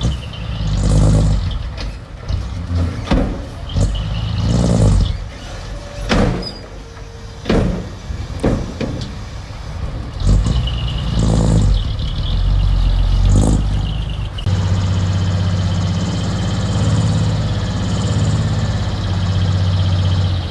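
Diesel engine of earthmoving machinery working, surging up and down repeatedly with sharp metal knocks and clanks in between, then running steadily under load for the last several seconds.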